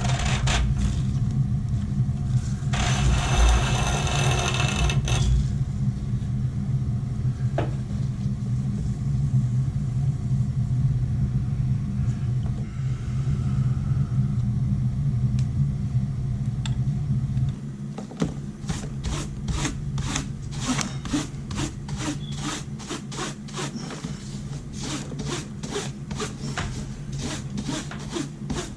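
Repeated rubbing and scrubbing strokes as a gas water heater's clogged filter is cleaned to cure a pilot that keeps going out. A steady low hum runs under the first part and stops about two-thirds of the way through, after which the strokes come evenly, about two a second.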